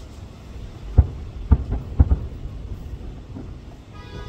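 Distant aerial firework shells bursting: four deep booms within about a second, the last two close together, over a steady low rumble.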